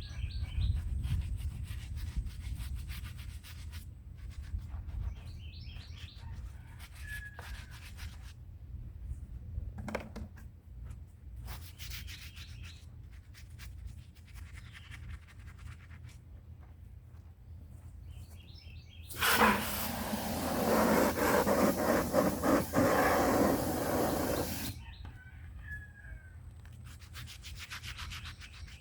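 Hand scrubbing of old concrete, a bird bath being scrubbed clean in quick, repeated rasping strokes that come and go. Birds chirp briefly a few times. A louder, steady rushing noise takes over for about five seconds near the end.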